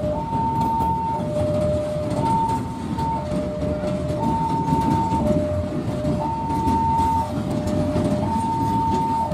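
Level-crossing warning alarm sounding an electronic two-tone signal, a high and a low note alternating about once a second, over the low rumble of ballast hopper wagons on the line.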